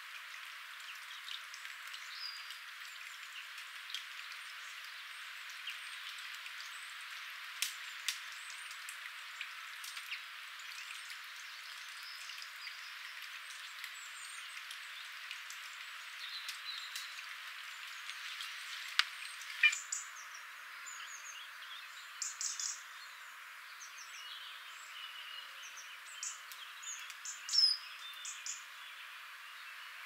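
Wild garden birds calling and chirping, short scattered calls that come thicker and louder in the second half, over a steady background hiss with a few sharp clicks.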